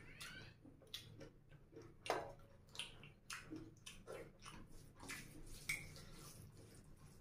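Soft, wet chewing and mouth smacks of a person eating rice and curry by hand, with faint scattered clicks as fingers work the rice on the plate.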